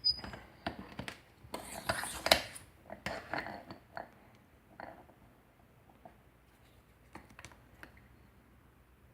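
Metal clinking, scraping and clicking of wafer padlocks and lock-picking tools being handled, busiest in the first three seconds, then a few faint ticks.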